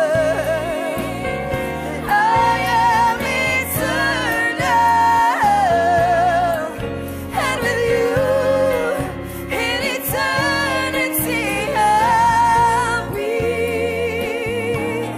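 Gospel song: a lead voice singing a slow melody with wide vibrato over instrumental backing.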